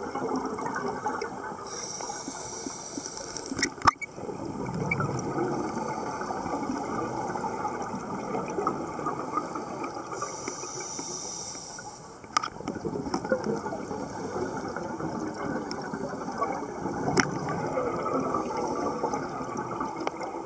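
Underwater scuba breathing through a regulator: a hissing inhalation about two seconds in and again about ten seconds in, each followed by a burst of bubbling as the exhaled air escapes, over a steady watery background with a few sharp clicks.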